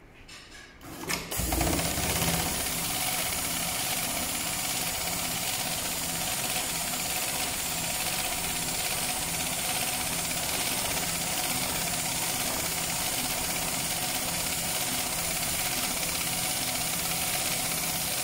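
HighTex MLK500-2516ECO automatic pattern sewing machine stitching a dense bar-tack pattern through thick safety-harness webbing, running steadily. A few clicks in the first second before the sewing starts.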